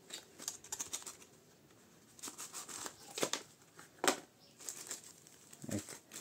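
Cardboard box and plastic packaging being handled and opened: irregular rustling and crinkling with scattered sharp clicks and taps, the strongest about three and four seconds in.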